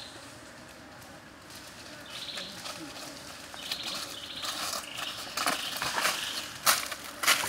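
Birds chirping, then from about five seconds in a few crunchy footsteps on dry leaf litter, each a sharp crackle.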